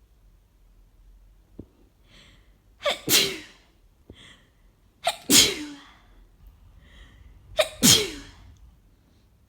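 A person with a head cold sneezing three times in a row, about two and a half seconds apart. Each sneeze is a sharp "hah-chuu" preceded by a short, faint intake of breath.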